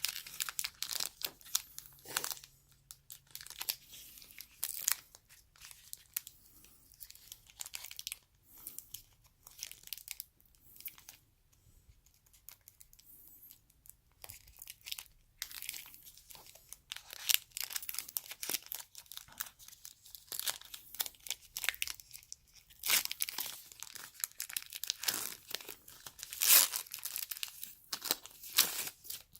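Plastic packaging of a trading card box being torn and crinkled open by hand, in short crackling bursts that come and go, busiest in the second half.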